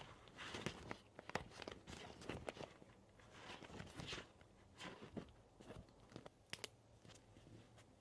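Paper and collage materials being handled for a journal: an irregular run of crinkles, rustles and soft taps, close and quiet.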